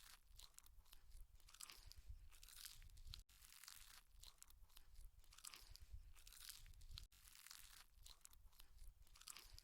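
Faint, close-up chewing of food with crisp crunching crackles, broken by a momentary dropout twice.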